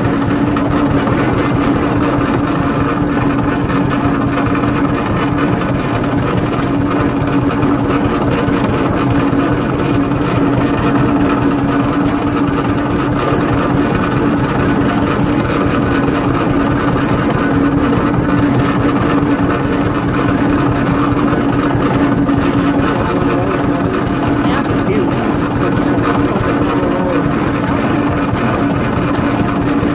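Vintage John Deere two-cylinder tractor engine running steadily while the tractor drives across a field, heard close up from the seat.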